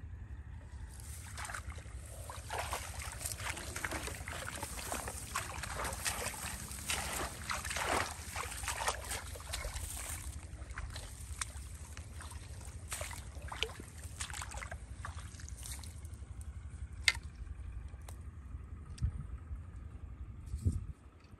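Shallow water splashing and sloshing in quick, irregular bursts for about fifteen seconds, then easing off. A single sharp click and a couple of soft knocks follow near the end.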